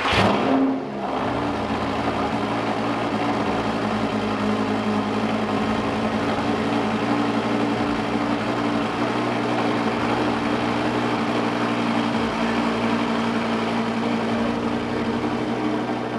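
Lamborghini Gallardo LP560-4's V10 engine running through a straight-pipe exhaust right after a cold start: a loud start-up flare dies down within the first second, then the engine settles into a steady idle.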